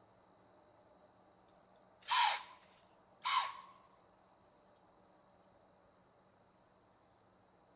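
Two loud, harsh, breathy blasts about a second apart, each about half a second long, typical of a white-tailed deer's alarm snort (blowing). Steady insect trilling runs underneath.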